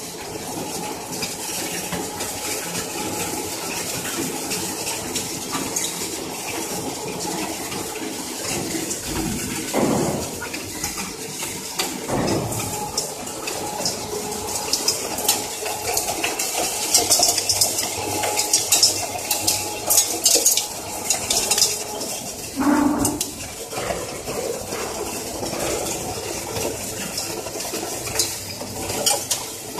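Jujube (red date) paste machine running, with repeated metallic clinking and rattling, thickest around the middle of the stretch.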